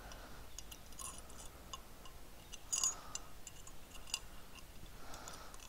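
Light scattered clicks and clinks of M5 cap screws being fitted through the holes of a metal carriage plate, with a couple of louder clinks about three and four seconds in.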